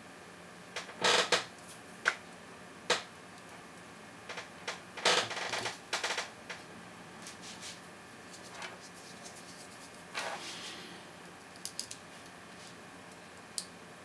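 Small metallic clicks and short scrapes at irregular intervals, as a lock pick and tension wrench are handled and put into the keyway of a brass City-Iseo 45 mm padlock. The loudest come as a quick cluster about a second in and again around five to six seconds in.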